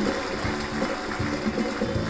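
Live band music, with a bass line stepping from note to note and drum hits.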